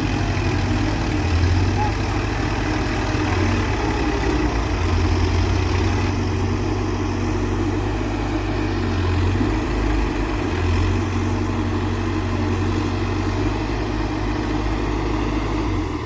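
Diesel engine of a Case 851EX backhoe loader running steadily, with small rises and falls in level.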